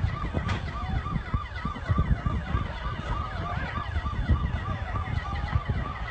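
Electronic siren sounding a fast repeating yelp, about three rises and falls a second, over a heavy low rumble.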